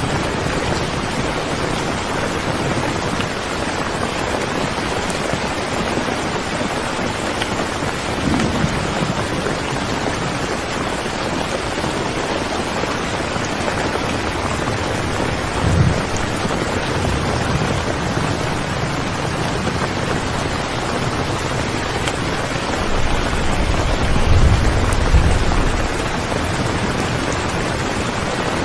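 Steady rain falling, an even hiss of many drops. A few low rumbles swell under it, the longest near the end.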